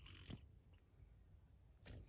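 Near silence, with two faint clicks about a second and a half apart as the tungsten fidget spinner is handled.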